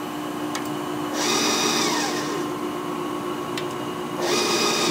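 CCI Citron surface grinder running under hydraulic power: a steady hum, with a hissing surge about a second long that recurs every three seconds or so as the hydraulic table cycles, and two sharp clicks about three seconds apart.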